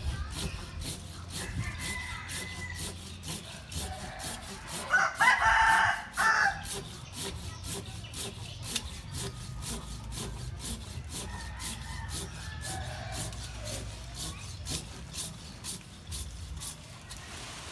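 A rooster crowing loudly about five seconds in, with fainter crowing at other moments, over a steady ticking of about two or three clicks a second.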